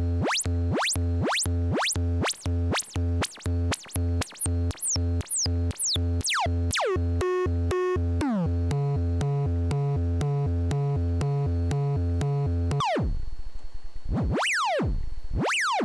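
DIY Eurorack modular synthesizer with an Erica Synths envelope generator, playing short repeated notes about three a second, each with a quick falling pitch sweep. As the knobs are turned it changes to a fast pulsing pattern alternating between two low notes. About thirteen seconds in it switches abruptly to a few slower, long downward sweeps.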